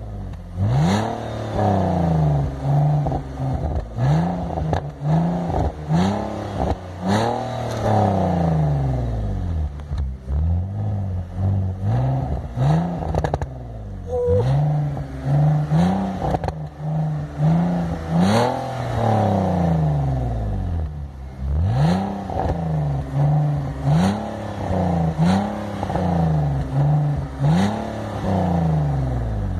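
BMW E85 Z4's engine being revved again and again, the revs rising sharply and falling back every second or two. Sharp pops and crackles come from the exhaust as the revs drop on overrun.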